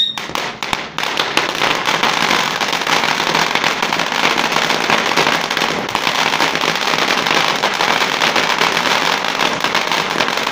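Ground fountain firework spraying sparks: a loud, steady hiss thick with rapid crackling, with a few sharper pops in the first second.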